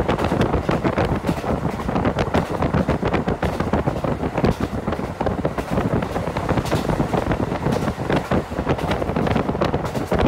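Diesel train running along the line, heard as a steady, dense rush of running noise mixed with wind buffeting the microphone.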